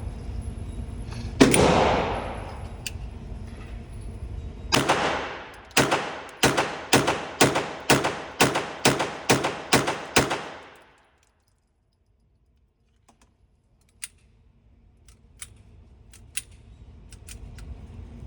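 Suppressed firearm being fired: a single shot about a second and a half in and another near five seconds, then a quick string of about ten shots at roughly two a second. Faint clicks of gun handling follow near the end.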